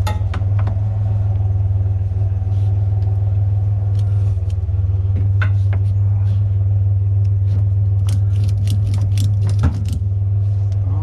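Truck engine running at a steady, unchanging pitch, with scattered light clicks and rattles that come thickest near the end.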